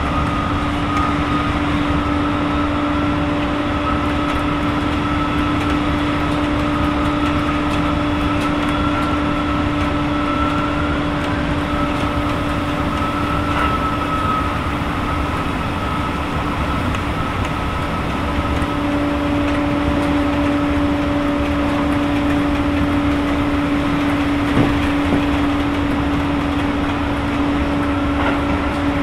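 Keisei 3000 series electric train running at a steady speed, heard from inside the car: a constant rolling rumble with a steady whine from the Toyo IGBT-VVVF traction motors and TD-drive gearing.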